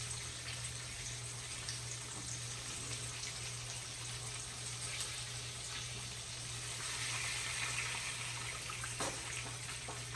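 Whole red snapper frying in hot oil in a skillet: a steady sizzle, swelling a little about seven seconds in, with a single sharp click about nine seconds in and a steady low hum underneath.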